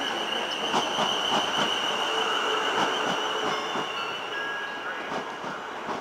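South West Trains electric multiple unit running into the platform, its wheels clicking rhythmically over the rail joints. A steady high squeal sounds over the rolling noise and fades out a little past halfway.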